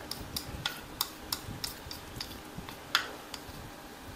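Chopsticks clicking against a ceramic bowl while picking up noodles, a quick run of light ticks about three a second, with one louder ringing clink about three seconds in.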